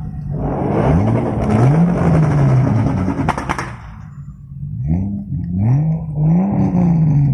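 Tuned Lexus IS300 engine and exhaust revved up and held, with crackling and a few sharp pops just before the revs drop. It is followed by three or four quick throttle blips.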